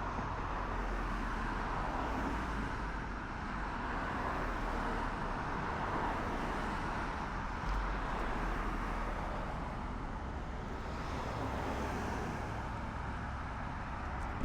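Steady road traffic noise with a low rumble, a passing vehicle swelling slightly about three-quarters of the way through.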